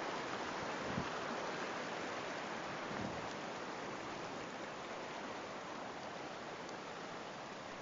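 Steady rushing of running stream water, easing slowly, with a couple of soft thumps about one and three seconds in.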